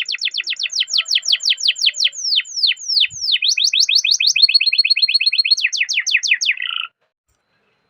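Domestic canary singing a long rolling song: fast runs of falling whistled notes, a slower run of longer downward sweeps about two to three seconds in, then a rapid steady trill. It cuts off suddenly near seven seconds.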